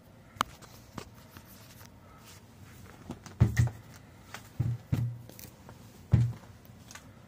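Soft low thumps and light clicks and rustles, with no voice. Three dull thumps come a little over a second apart in the second half, among scattered sharp taps.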